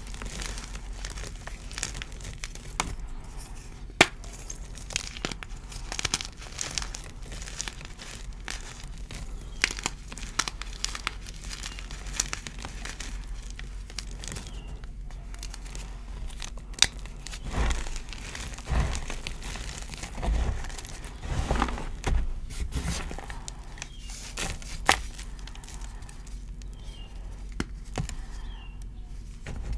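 Hands crushing and crumbling dyed gym chalk in a tray of chalk powder: a steady run of crisp crunches and sharp cracks, with a few heavier thuds about two-thirds of the way through.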